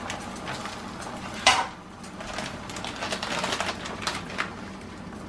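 Beaten eggs sizzling and crackling in a hot skillet on an electric stove, with a short clatter about one and a half seconds in.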